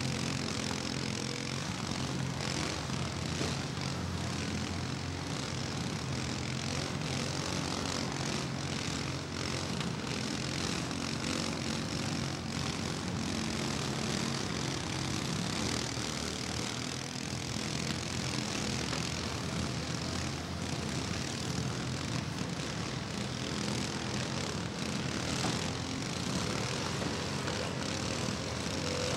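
Several riding lawn mowers' small gasoline engines running together in a steady drone.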